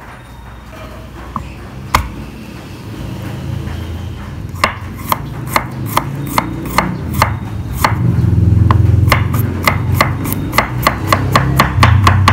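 Chef's knife chopping garlic cloves on a wooden cutting board. A single knock comes about two seconds in. Sharp chops begin a little before the middle, at about two a second, and quicken to about four a second near the end, over a low hum.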